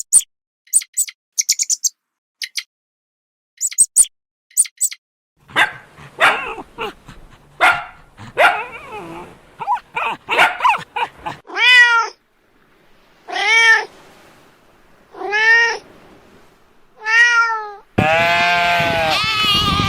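Domestic cat meowing: after a run of short high chirps and rougher calls, four long meows come about every one and a half to two seconds, each rising and then falling in pitch. A louder, fuller animal call takes over near the end.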